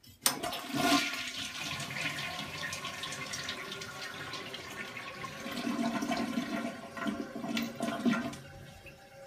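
A household toilet flushing with the lid down: it starts suddenly, and a rush of water runs for about eight seconds before dying down near the end.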